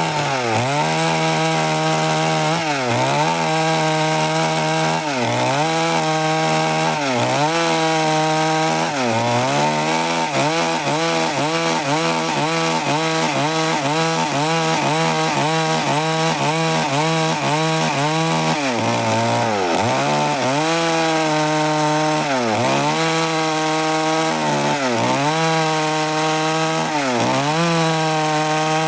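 Stihl MS 382 two-stroke chainsaw running at high speed while cutting wood, its pitch dipping briefly and recovering over and over, about every one to two seconds, and faster, about twice a second, in the middle stretch.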